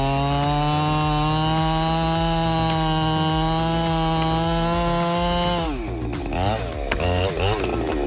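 Chainsaw engine running at high, steady revs. A little over five seconds in the engine speed drops sharply, then rises and falls unevenly.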